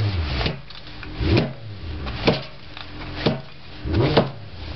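Hammer blows smashing a Nikon compact digital camera on concrete, repeated about once a second, its plastic and metal body cracking apart.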